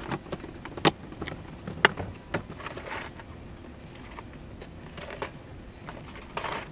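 Scattered sharp clicks and knocks of fishing tackle being handled in a bass boat's open storage compartment, with a few short rustling noises between them.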